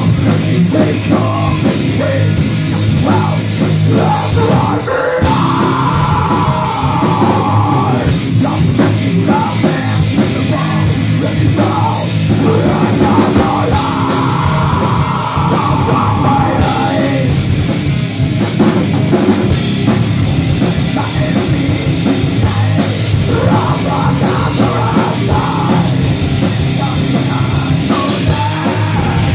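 Live heavy rock band playing: distorted electric guitar, bass guitar and drum kit, with a singer's vocals coming in at times.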